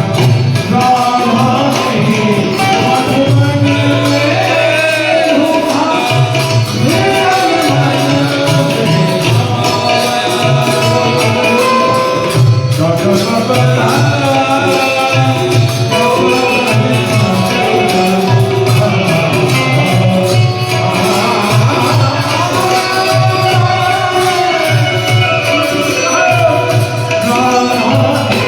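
Gujarati devotional song in praise of Shreeji: a voice singing over hand percussion.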